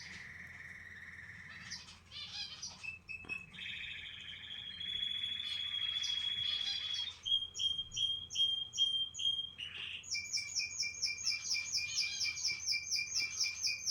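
Canary singing a continuous song of trills and rapid repeated notes, switching to a new phrase every couple of seconds, with a fast trill in the last few seconds.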